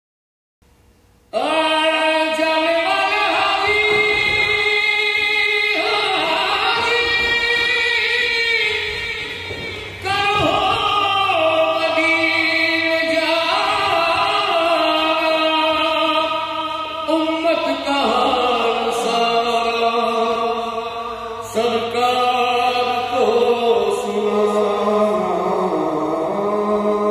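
Singing in a slow song of long, held notes. The phrases break off and begin again every several seconds, and the singing starts about a second in.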